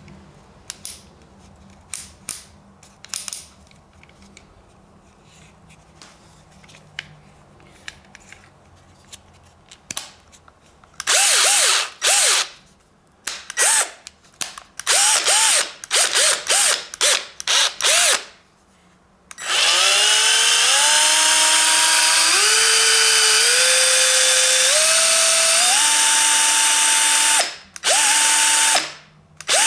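Metabo SB 18 cordless hammer drill: a few seconds of small clicks from handling its collar and switches, then the motor run in a series of short bursts that spin up and down. Then a long run about two-thirds of the way in whose whine rises in several distinct steps, followed by two more short bursts near the end.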